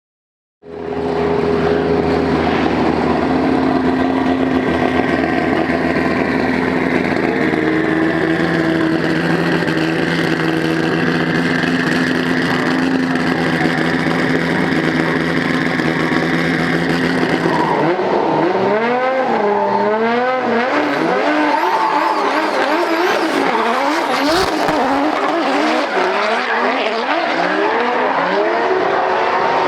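Drift cars' engines held at high revs with tyres squealing, a steady engine note for most of the first part. About two-thirds of the way in the sound changes abruptly to engine pitch rising and falling quickly over and over as the throttle is worked through the slide.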